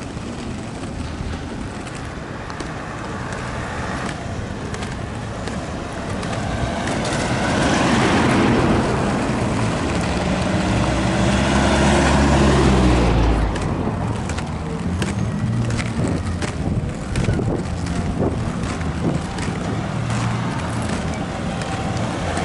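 Roller skate wheels rolling on asphalt: a steady rumble with scattered ticks. A motor vehicle passes, its engine rising to the loudest point about halfway through and then fading, with more traffic after.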